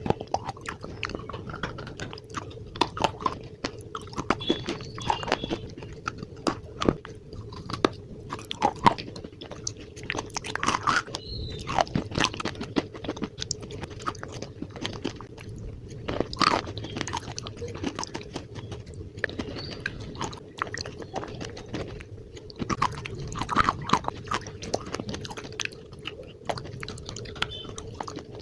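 Slate being bitten and chewed close to the microphone: dense, irregular brittle crunches and cracks, one after another, with a faint steady hum underneath.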